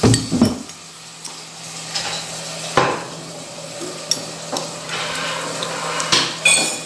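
A metal spoon clinks and scrapes against a ceramic soup bowl with several irregular clicks while soup is eaten. Behind it, dishes clatter as they are washed, over a steady low hum.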